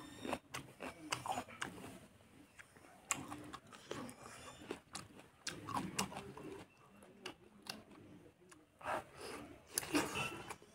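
Close-miked chewing and biting with irregular wet mouth smacks and crunches, loudest in a cluster about nine to ten seconds in.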